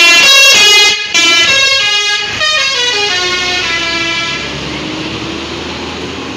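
ALS 103 bus's telolet horn playing a quick multi-note tune, the notes changing every few tenths of a second. After about two seconds it settles into one long note that slowly falls in pitch and fades, with a low engine rumble underneath.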